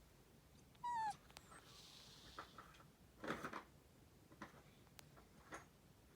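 Faint snoring of a sleeping cat: soft, irregular snorting breaths. About a second in there is a short squeak, falling slightly in pitch, which is the loudest sound.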